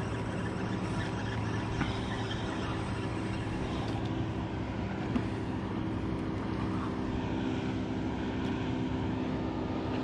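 A motor engine drones steadily at one even pitch, with no rise or fall.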